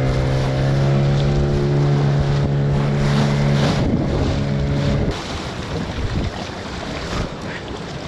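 A small boat's engine runs steadily, then cuts off abruptly about five seconds in, leaving wind and water noise.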